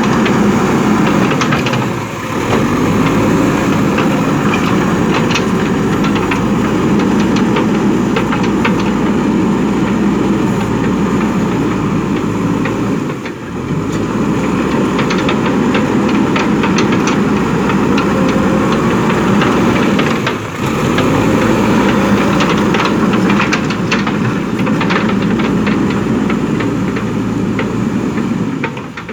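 JCB 3DX backhoe loader's diesel engine running steadily as the machine works, with scattered clanks. The sound dips briefly three times.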